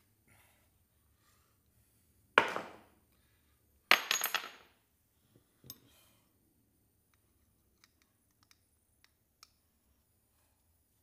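Pieces of scrap metal clanking as they are dropped into a container: one sharp clank about two seconds in, then a quick run of clinks, followed by a few small knocks and faint ticks.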